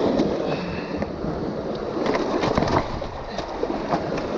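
Surf washing over shoreline rocks, broken by a run of clattering knocks and scrapes on the rocks as a freshly landed Atlantic bonito is hauled up out of the water.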